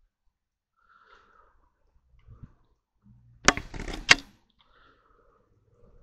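Two sharp knocks about half a second apart, with rustling between them, a little past halfway, after a few faint scuffs.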